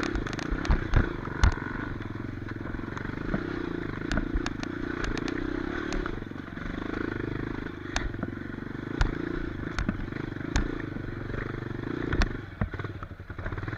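Off-road trail motorcycle engine running at low speed, its note swelling and easing, with frequent sharp knocks and clatter throughout.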